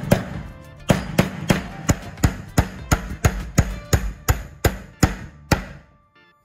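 A hammer striking repeatedly and evenly, about three blows a second, some fifteen blows in all, each with a short ringing decay, over faint background music. The blows stop about five and a half seconds in.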